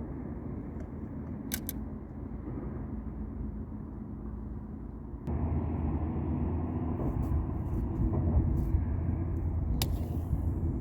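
Wind buffeting the microphone: a steady low rumble that jumps louder about five seconds in, with a few faint clicks.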